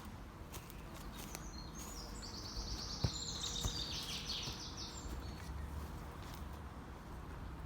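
A songbird singing one fast phrase of repeated high notes that steps down in pitch, starting about two seconds in and lasting about two seconds. Low thuds of walking and a sharp knock about three seconds in come from the person filming.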